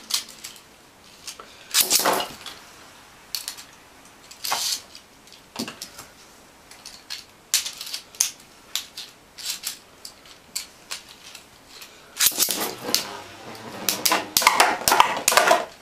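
Scattered plastic clicks and knocks. About twelve seconds in, two plastic Beyblade spinning tops are launched into a plastic stadium and spin, knocking against each other and the bowl in a fast run of clicks.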